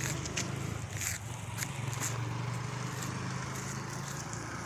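Footsteps and light scuffs on a wet road strewn with cyclone debris, a little under one a second, over a steady low rumble.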